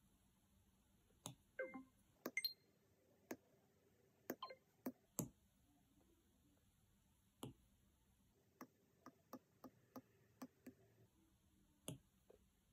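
Apple Pencil tip tapping on an iPad's glass screen: about twenty light, sharp taps at irregular spacing, a few of them with a brief ring.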